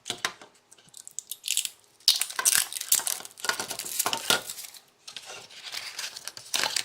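Wireless doorbell parts and packaging being handled: crinkling rustle with many sharp clicks and clinks of hard plastic pieces, busiest in the middle and easing briefly near the end.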